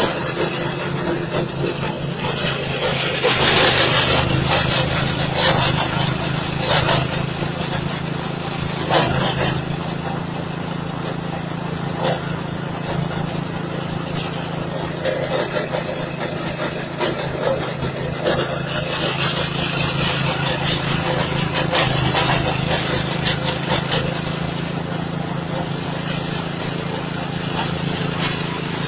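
Engine-driven straw chopper and grinder machine with a 6.5 hp motor, running steadily. Louder rushing surges come several times: about three seconds in, around nine seconds, and again around twenty seconds.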